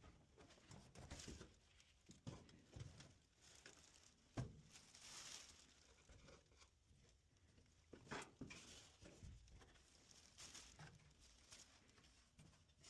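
An LG clothes dryer making faint, irregular squeaks, clicks and rubbing noises, the squeaking fault it is being recorded for.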